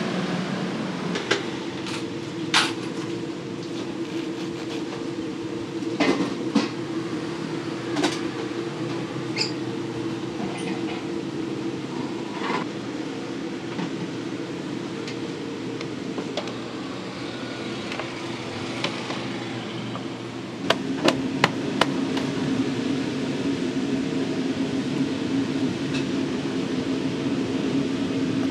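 Food-stall kitchen sounds: a steady hum of kitchen equipment under scattered sharp clacks and knocks of metal utensils. About two-thirds of the way in the hum shifts lower and grows louder, and a quick run of four clacks follows.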